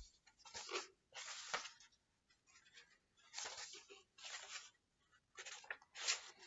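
Faint rustling of paper book pages being handled and turned, in about six short bursts.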